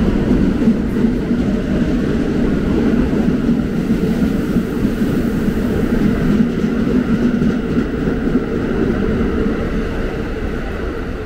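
New York City subway N train pulling out of the station: a loud, steady rumble of wheels on rails that eases off slightly near the end as the train moves away.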